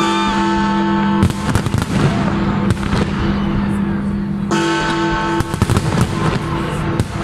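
Large fireworks display bursting in irregular clusters of bangs and crackles, over loud music with long held notes.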